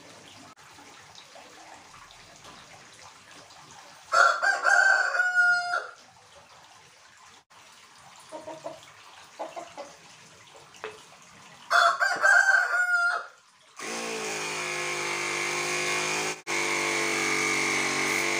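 A rooster crows twice, a call of about a second and a half each time, about four and about twelve seconds in. Then a mini car-tyre air compressor starts and runs steadily, with a steady pitched hum, briefly dropping out once.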